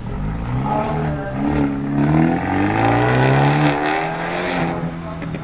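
A car engine accelerating away, its pitch rising through the first half. It is loudest about three to four seconds in as the car passes, then settles to a steady note near the end.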